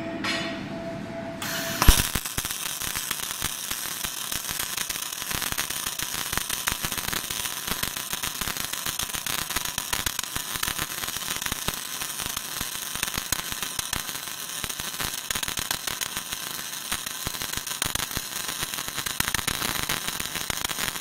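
Wire-fed arc welding torch on an automatic welding carriage: after a low hum, the arc strikes with a sharp crack about two seconds in, then crackles and sputters steadily as the carriage lays a butt-weld seam.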